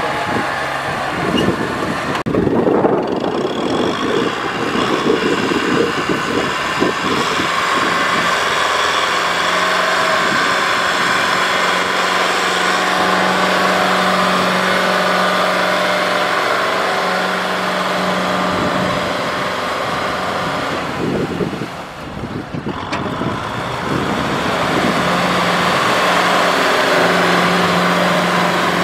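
Diesel engines of a Kubota farm tractor and a rice combine harvester running, a continuous steady drone.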